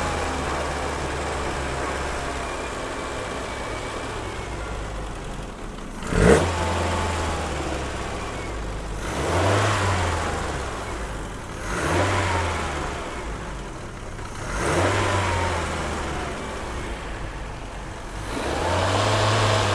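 Triumph Acclaim's 1.3-litre Honda four-cylinder engine idling on part choke and revved gently four times, each rev rising and settling back to idle. The owner calls the running a little lumpy and says the ignition timing needs doing. A single sharp clunk about six seconds in.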